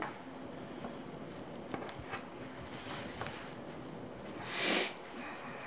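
Braided rope being handled and knotted: faint rustles and light clicks over a steady hiss, with one louder swish of about half a second near the end.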